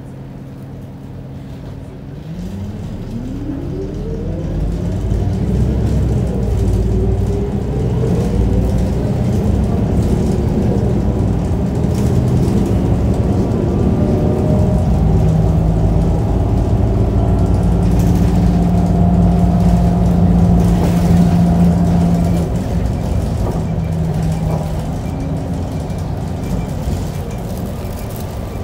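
Isuzu Erga city bus's four-cylinder diesel heard from inside the cabin: idling at first, then from about two seconds in it revs up as the bus pulls away, the pitch rising through the gears. It runs louder at speed through the middle and eases off near the end as the bus slows.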